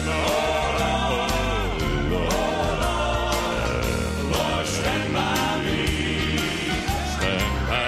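Male gospel quartet singing a song in close harmony over a band, with a steady beat.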